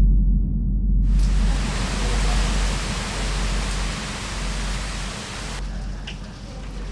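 Hurricane wind and heavy rain, with a loud low wind rumble buffeting the microphone. A dense hiss of rain joins about a second in and eases shortly before the end.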